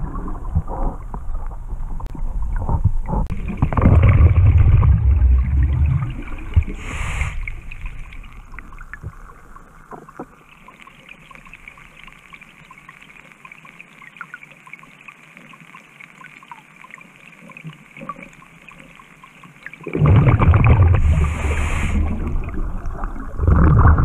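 Scuba regulator breathing recorded underwater: loud, low bubbling rumbles of exhaled air a few seconds in and twice near the end, with a long quieter stretch between where only a faint steady hiss remains.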